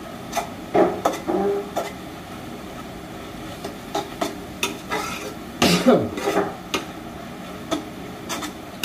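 A spatula tapping and scraping in a cooking pan as greens are stir-fried: irregular clinks and knocks, with a louder clatter about six seconds in.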